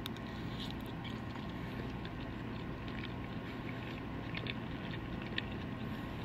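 A person chewing a mouthful of shrimp and spaghetti squash, faint, with a few small clicks over a steady background hum.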